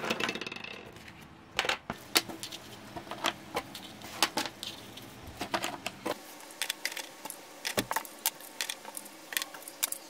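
Light, irregular clicks and taps of crisp baked macaron shells being picked up and set down on a metal baking tray and into a plastic container.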